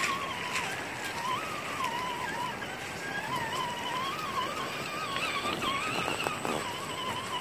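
1:10-scale JK Rock Cruiser RC crawler's electric motor and gearbox whining, the pitch wavering up and down as the throttle is worked, over the hiss of running water. A short run of clicks comes about six seconds in as the tyres crawl over stones.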